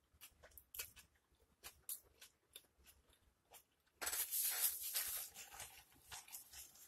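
Close-miked chewing of a pulled pork sandwich with small wet mouth clicks, then about four seconds in a loud rustle of a paper napkin, lasting about a second, as it is picked up and wiped across the mouth.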